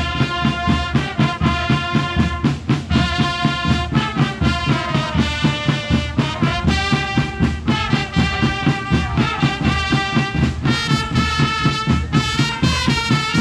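Brass and drum band playing outdoors: held horn notes over a steady, quick drum beat, with a downward sliding brass passage about four seconds in.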